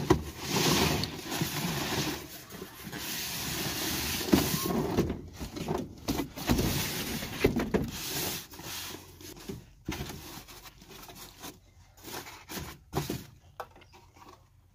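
Unpacking sounds: a cardboard box and a styrofoam packing case being opened and handled, with rustling, scraping and knocks. It is busiest and loudest over the first few seconds, then thins to scattered handling noises.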